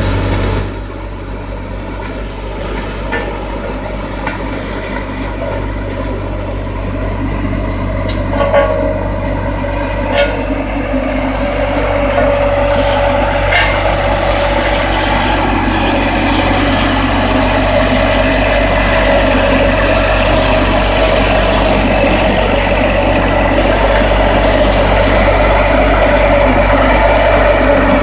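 Bomag BW121AC vibratory road roller's diesel engine running, growing gradually louder. A few short sharp clicks come in the first half, and a steady mid-pitched whine joins about a third of the way in.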